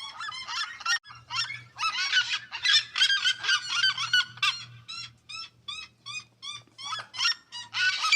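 Red-legged seriemas calling: a run of short, harsh notes from more than one bird, overlapping thickly in the middle, then single notes about three a second.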